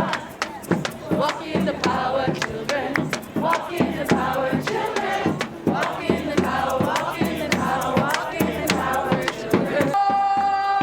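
A group of people singing together with a steady beat of sharp knocks under the voices; a voice holds a long note near the end.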